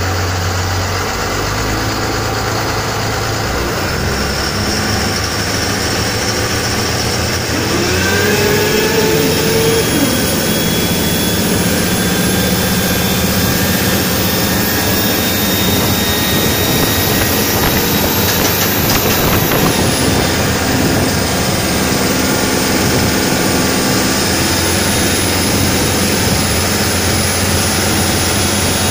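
Volvo Penta D6-350 six-cylinder marine diesel (the port engine) running, stepping up in load about eight seconds in with a rising pitch and a high whine over the engine note. This is the engine the owner reports knocking under heavy acceleration.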